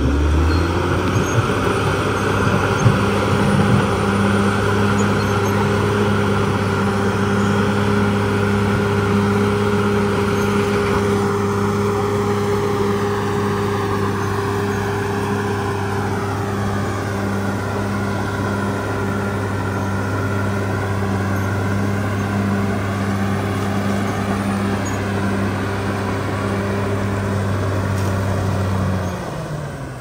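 Caterpillar D6R XL bulldozer's diesel engine running steadily under load as the dozer pushes soil with its blade, a constant low drone with a wavering whine above it. The sound drops away just before the end.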